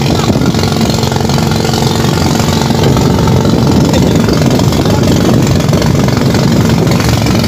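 Small engine of an outrigger boat running steadily while towing a bamboo raft, with water splashing along the raft's side.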